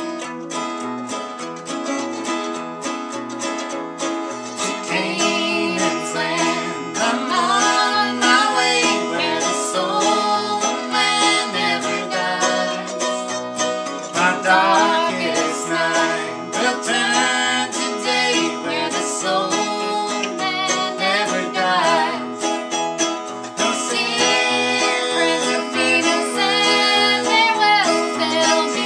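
Two acoustic guitars strumming and picking an old-time tune, with a woman singing from about five seconds in.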